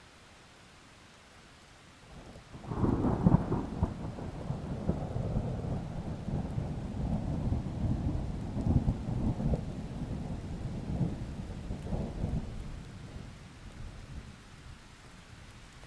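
A thunderclap over faint steady rain: the thunder starts sharply about three seconds in, then rolls on as a long low rumble that slowly dies away near the end.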